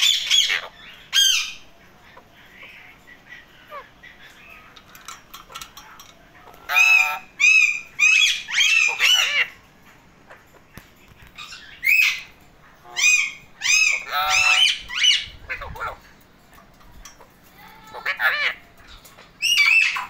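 Alexandrine parakeets calling: loud, harsh squawks in bursts of several at a time, with quieter gaps of a few seconds between bursts.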